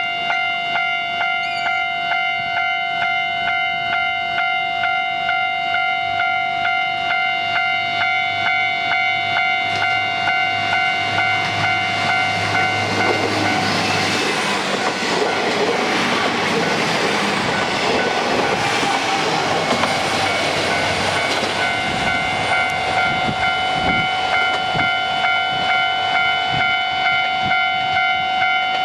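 A Japanese level-crossing warning bell rings with a fast, steady repeated ding throughout. A Resort Shirakami train passes over the crossing, its rumble swelling from a little before halfway and fading a few seconds after. Wheels knock over the rail joints as it goes.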